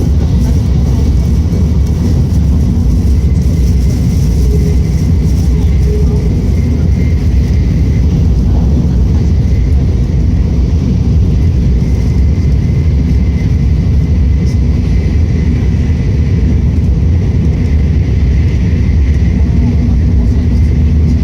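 Steady cabin noise of a Tokaido Shinkansen bullet train running at high speed: a loud, even rumble and rush.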